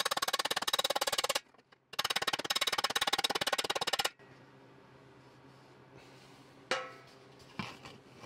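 Rapid tapping of a body slapper on the rim of a 1969 Triumph TR6 Rostyle wheel cover, backed by a dolly, working out a dent. Two quick runs of about ten blows a second with a short break between, then only a couple of faint knocks.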